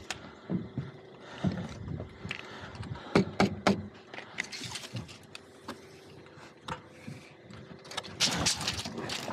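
Scattered clicks and knocks from a tape measure being pulled out and handled and from work boots on OSB roof sheathing, with a short rattle near the end.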